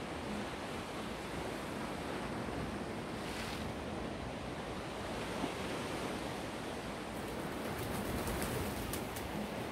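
Black Sea waves breaking and washing on the shore in a steady rush. There is a brief hiss about three seconds in, and fine crackling near the end.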